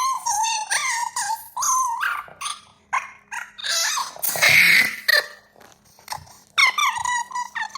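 A high, squeaky voice whining and squealing in short rising and falling calls, then a sneeze about four and a half seconds in, then more squeaks. It is a mimicked sneeze, the son's turn in the family's sneezes.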